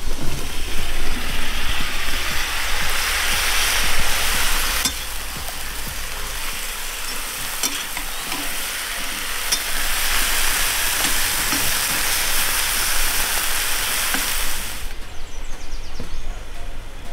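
Raw potato wedges going into hot fat in a cast-iron cauldron of frying meat, sizzling loudly while a spoon stirs through them. The sizzle dips about five seconds in and stops near the end, where a few light knife taps on a cutting board follow.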